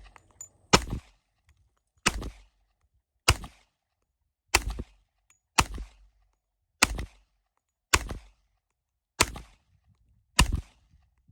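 FN FNX-45 Tactical pistol in .45 ACP fired shot by shot in a slow, steady string: nine sharp reports about one every 1.2 seconds, each with a short echo.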